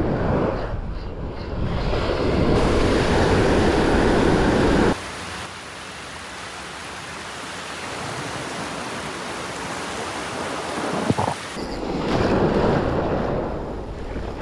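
Surf washing on a beach with wind buffeting the microphone. The sound drops suddenly about five seconds in and comes back louder near the end, with one short sharp click about eleven seconds in.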